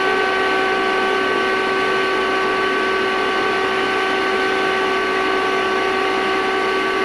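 Vacuum cleaner motor running steadily: a constant whine of several steady tones over a rushing hiss of air.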